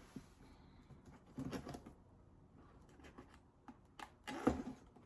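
Knife cutting the tape on a cardboard box and the cardboard being handled: scattered scrapes and clicks, a louder rustle about a second and a half in, and a short thump about four and a half seconds in.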